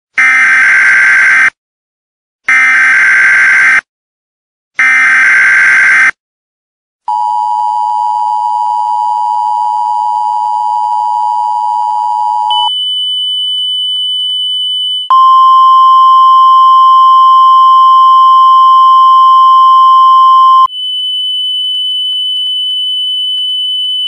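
Emergency Alert System tones: three one-second bursts of SAME digital header data, then the steady two-tone EAS attention signal for about five seconds. After a thin high-pitched tone, the louder single-pitch National Weather Service warning alarm tone sounds for about six seconds, and the high tone returns near the end.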